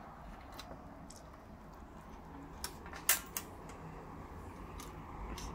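Light metallic clicks and clinks of a hinged wire grill basket being closed and clamped around a chicken, the loudest a little after three seconds in, over steady low background noise.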